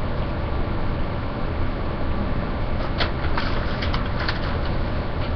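Steady low hum and hiss of room background noise. A few light paper crinkles sound between about three and four and a half seconds in as a receipt is handled.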